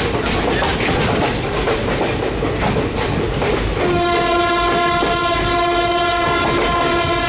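Passenger express train running through, its wheels clattering over the rail joints, then about four seconds in the WAM4 electric locomotive's horn sounds one long, steady blast over the train noise.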